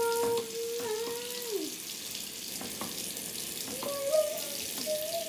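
Water running from a tap into a bathroom sink, a steady hiss. A girl sings over it in a few long held notes.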